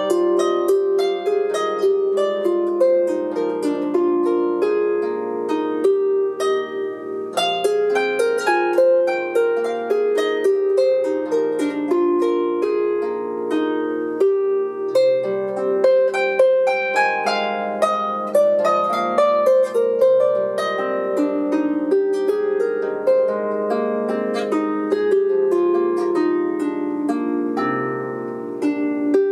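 Lever harp played solo: a continuous run of plucked notes, a melody over low bass notes, each note ringing on.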